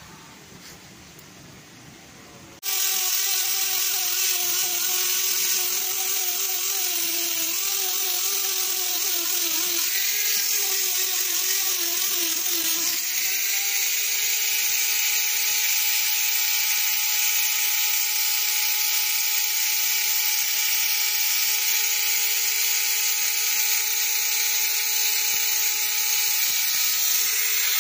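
Small electric power tool's motor starting suddenly about two and a half seconds in and running steadily with a hissing edge. Its pitch wavers for about ten seconds, then holds steady.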